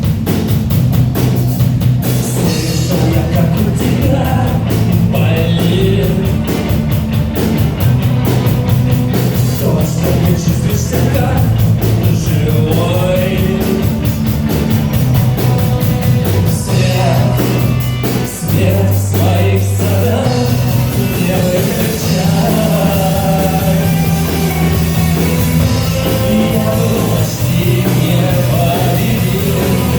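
A rock band playing a song live, with a singer over bass guitar and drums. About two-thirds of the way through the drums stop briefly while a single low bass note holds, then the band comes back in.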